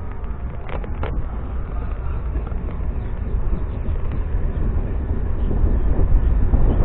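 MEMU electric train running along the line, heard from on board: a steady low rumble with wind buffeting the microphone, two short knocks about a second in, and the noise growing gradually louder.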